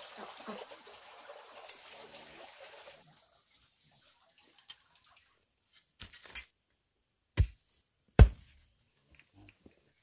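A soft rustling hiss for about three seconds, then after a pause a few sharp thuds of a long-handled digging tool striking dry, stony earth, the loudest two just under a second apart.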